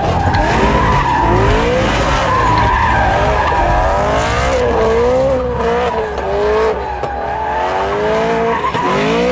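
Supercharged 4.0-litre V8 of a BMW M3 E92 revving hard up and down again and again while its rear tyres squeal and skid through doughnuts.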